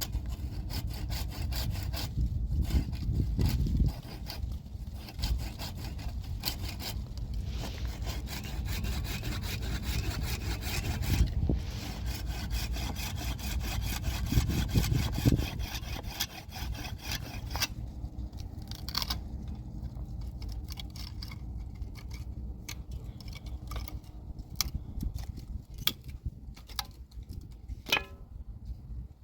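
Saw cutting through wood with repeated back-and-forth strokes for the first seventeen seconds or so, then sparser scrapes and knocks.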